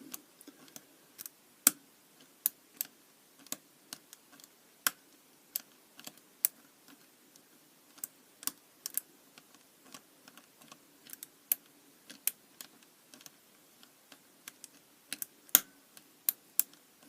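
Irregular sharp little clicks and ticks of a pick wire probing the levers of a Squire 550 four-lever padlock under tension, as the picker feels for levers that will lift; one louder click about fifteen seconds in.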